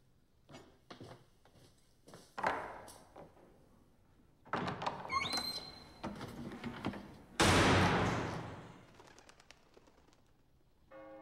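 Footsteps on a stone floor and a knock, then a heavy door is worked with a short squeak and slammed shut. The bang is the loudest sound and rings away in an echoing room over about a second and a half.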